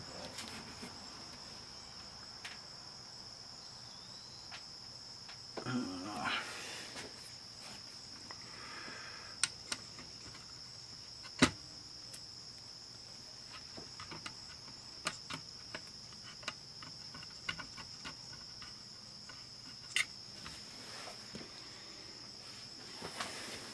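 Quiet handling of a portable cassette player as its tape head is cleaned with an alcohol-dampened wooden stick: scattered light clicks and a short rustle about six seconds in. Under it runs a steady, faint, high-pitched whine.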